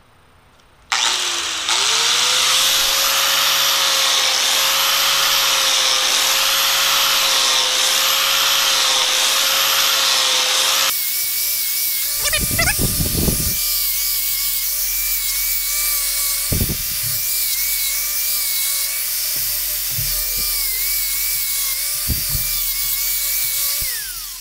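Electric angle grinder with an abrasive deburring wheel, smoothing the machined edges of a cast iron part. It starts about a second in and runs with a steady whine, which changes abruptly about halfway. A few scrapes and knocks follow as the wheel works the edges, and near the end the grinder spins down with a falling pitch.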